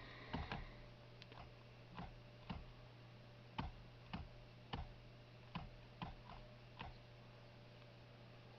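About a dozen sharp clicks at uneven intervals, from the detents of a new Subaru Legacy headlight and turn-signal combination switch being worked through its positions, over a faint steady electrical hum.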